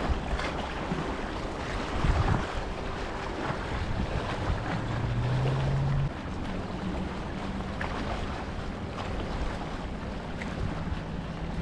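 Wind buffeting the microphone over small waves lapping at the shoreline, with a few soft thumps. A faint steady low hum comes in about four seconds in and shifts pitch near six seconds.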